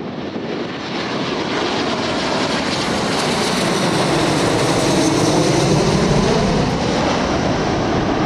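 Airliner engines passing close by, the noise swelling to a peak about five to six seconds in with a sweeping, phasing sound as the aircraft goes over.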